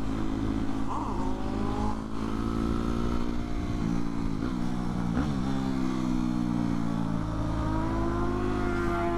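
Motorcycle engine running while riding, its pitch climbing, dropping briefly about halfway through, then climbing again with throttle and gear changes, over a steady low rush of wind and road noise.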